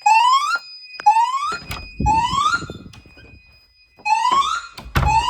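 Fire alarm voice-evacuation speakers sounding a loud rising whoop tone in a temporal-three pattern. Three short upward sweeps come about a second apart, then a pause of about a second and a half, then two more. A faint steady high tone runs underneath, with a few sharp clicks.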